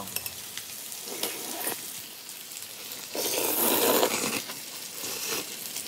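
Naengmyeon noodles being slurped, in a few short slurps and one louder, longer slurp about three seconds in, over a faint steady hiss.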